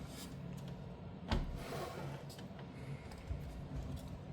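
Faint handling of a graphics card being taken apart: light rubbing and small ticks, with one sharp click about a second in, over a steady low room hum.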